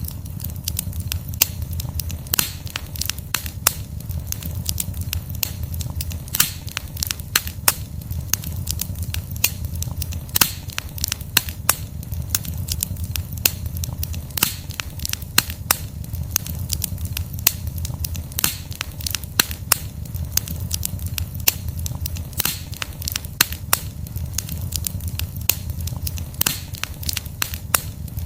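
Wood fire burning, with irregular sharp crackles and pops from the logs over a steady low rumble of the flames.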